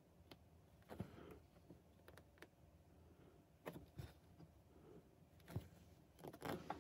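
Faint cross-stitch sounds: a needle pushed through 18-count Aida fabric and embroidery floss drawn through, making soft taps and brief rustles about a second apart, with a quick cluster of them near the end.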